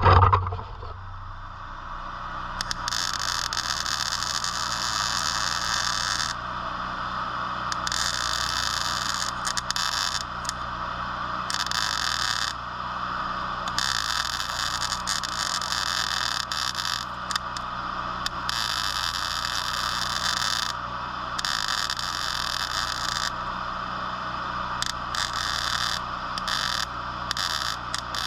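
Welding arc crackling in repeated short runs of one to three seconds, stopping briefly between them, over a steady low hum.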